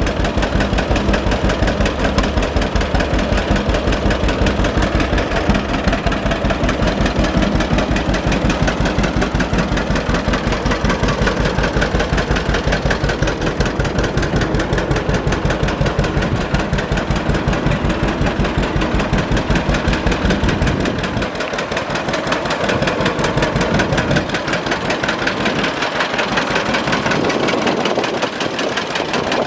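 John Deere Model A tractor's two-cylinder engine running steadily with an even, rapid popping exhaust beat. The deepest low end thins out about two-thirds of the way through.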